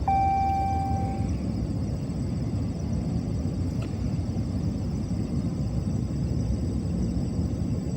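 A frozen truck engine being cranked by its starter in −15° cold without catching. There is a steady high whine in the first second or so.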